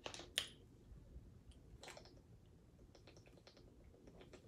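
Faint, close-miked mouth clicks from eating and drinking: two sharp clicks near the start, another about two seconds in, and light ticks between.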